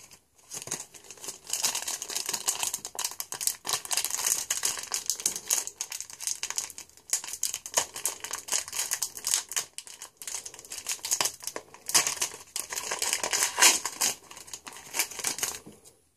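Foil trading-card pack wrapper crinkling and tearing as it is opened by hand: a dense, irregular run of crackles.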